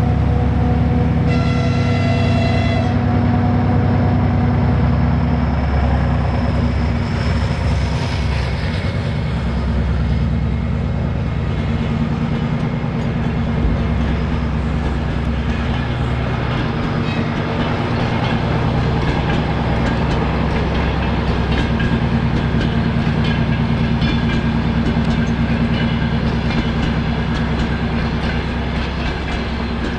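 Diesel locomotive climbing a grade under heavy load, its engine running loud and steady, with a short horn blast about a second in. The passenger coaches then rumble past on the rails.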